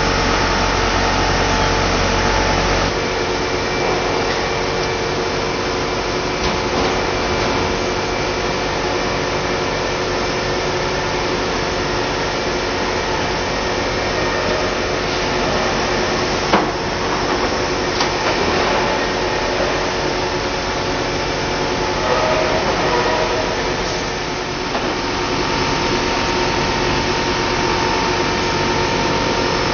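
Extrusion blow moulding machine running with a steady mechanical hum, with several steady tones over the noise. The low rumble drops away about three seconds in, and a single sharp click comes about halfway through.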